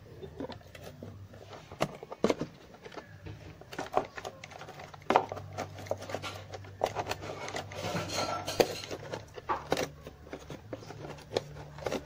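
Hand pop-rivet gun being fitted and worked on a rivet in a plastic drip tray: scattered clicks and knocks of the metal tool against the plastic. The rivet is not pulling because the gun's jaws hit the edge of the tray.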